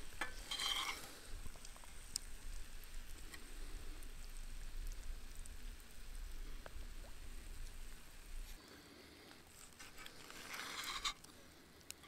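Knife and wooden fork cutting a seared steak in a cast-iron skillet: short scraping, squishing strokes about half a second in and again near the end, with a few faint ticks between. A low rumble underneath drops away about two-thirds of the way through.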